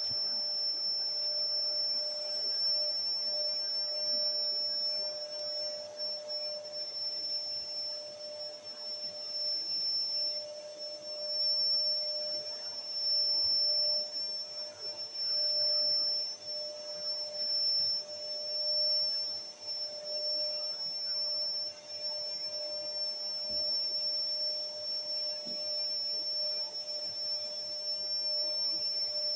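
Canister vacuum cleaner running steadily with a high whine, its sound swelling and easing every couple of seconds as the floor head is pushed and pulled over the carpet.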